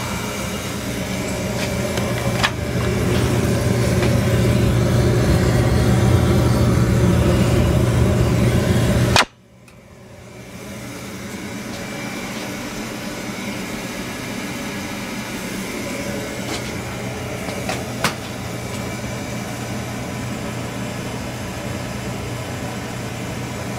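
Beckett AF oil burner firing and running on a freshly bled line and new nozzle: a steady motor-and-fan hum with the rush of the flame, growing louder over the first few seconds. The sound cuts off abruptly about nine seconds in and comes back steady and somewhat quieter.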